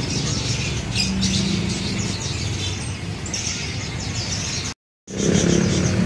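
Many caged songbirds chirping and twittering together, short high calls over a steady low rumble. The sound cuts out for a moment near the end, then comes back a little louder.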